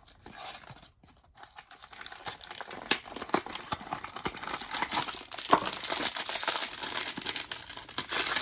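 Blind-box packaging torn open and crinkled by hand. A dense crackling of crinkly wrapping starts about a second in and keeps going.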